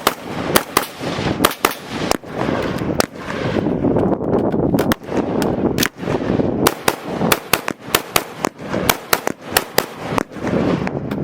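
Semi-automatic gunfire: many sharp shots in quick strings, with short gaps between them. The fastest run comes from about six to ten seconds in, at several shots a second.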